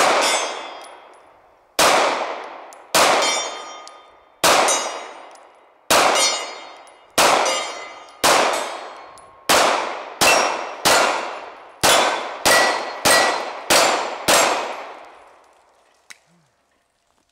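Glock 26 9mm pistol firing about fifteen shots at steel targets, each shot followed by the ringing of the struck steel. The shots come about a second and a half apart at first and quicken to under a second apart toward the end.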